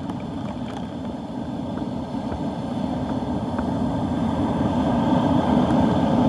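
Low, steady rumble of wind and surf, muffled by the hard plastic dive case around the camera, slowly building in level.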